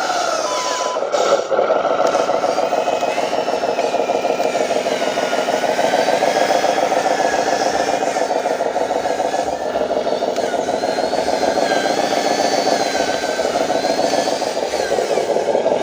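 Radio-controlled dump truck model driving under load: a steady motor-and-gear drone with a wavering whine above it. A reversing beep sounds briefly at the start.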